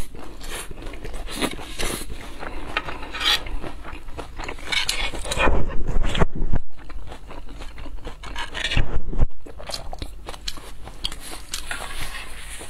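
Metal spoon scraping and clinking against a plate as the leftover sauce is scooped up, with louder slurping at the plate's rim twice.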